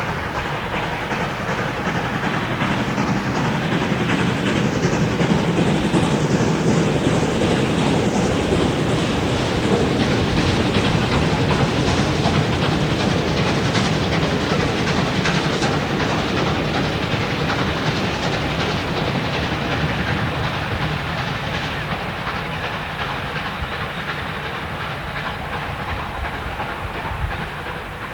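Steam locomotive 520 working its train: steam exhaust and running gear over the wheels' clickety-clack on the rail joints. The sound builds over the first several seconds, then slowly fades away.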